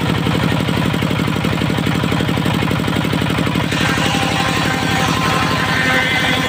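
Dongfeng diesel engine driving a circular saw bench, running with a steady rhythmic chug while the blade spins free. About four seconds in, the blade starts cutting a gempol-wood board and a higher, hissing cutting whine joins over the engine.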